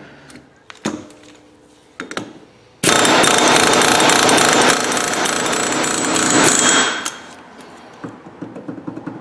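Pneumatic air hammer rattling against the end of the axle shaft in a 2005 Honda CR-V's rear hub for about four seconds, starting about three seconds in, driving the shaft inward to free it from the hub. Lighter clicks of tool handling come before and after.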